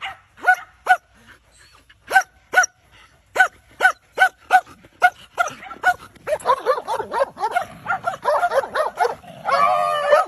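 Dogs barking: sharp, high barks at about two a second, then from about six seconds a faster, overlapping flurry of barks and yips, with one longer drawn-out cry near the end.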